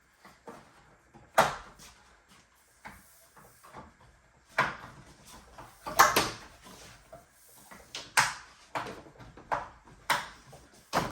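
Plastic end covers being pressed and snapped onto a window blind's headrail: a string of about nine sharp clicks and knocks at uneven intervals, the loudest about six seconds in.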